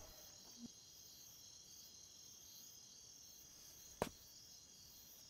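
Faint crickets chirping steadily, with a single sharp knock about four seconds in.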